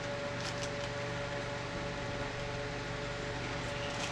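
Steady background hum of a running appliance, with a constant mid-pitched tone, and a couple of faint short clicks.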